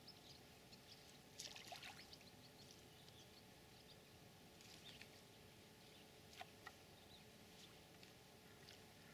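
Near silence: faint outdoor hiss with a few small, quiet water splashes and ticks, a cluster about a second and a half in and more near five and six and a half seconds, as a fish is handled in the shallows.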